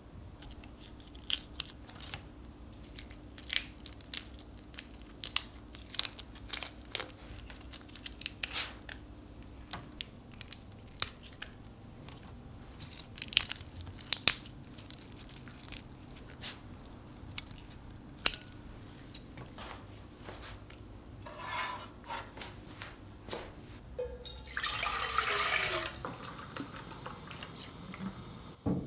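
Kitchen scissors snipping and cracking through the shells of raw shrimp: a long, irregular string of sharp, crunchy clicks. Near the end, liquid is poured for a couple of seconds.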